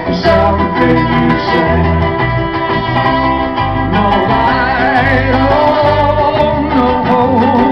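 Live band playing an instrumental passage: trumpet carrying the melody over strummed acoustic guitar, electric bass and cajón, amplified through the stage PA.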